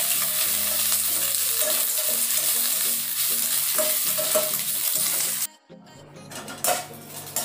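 Chayote peel, green chillies and curry leaves sizzling in hot oil in a kadai, stirred with a perforated steel skimmer ladle. The loud sizzle cuts off abruptly about five and a half seconds in and gives way to quieter frying with a few light scrapes and clinks of the ladle against the pan.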